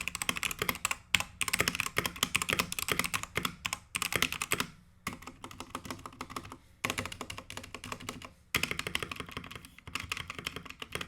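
Typing on a mechanical keyboard: a fast, continuous run of keystrokes. It breaks off briefly and jumps in level about four to five seconds in, again near seven seconds and near eight and a half seconds, with a quieter stretch between about five and eight and a half seconds.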